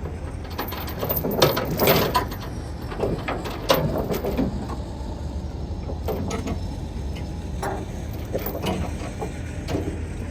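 Irregular clicks and knocks of hand work against metal equipment, with a steady low hum underneath.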